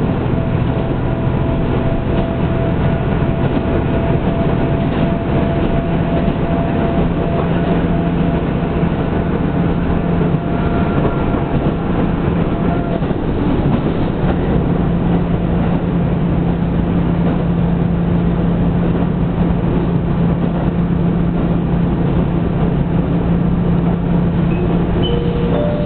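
Diesel railcar running along the line, heard from inside the carriage: a steady engine drone under the rumble of the wheels on the track. The engine note shifts about halfway through.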